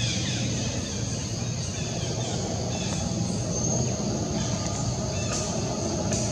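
Outdoor background sound: a steady low rumble under a constant high-pitched buzz, with a few faint short chirps near the start and again about three seconds in.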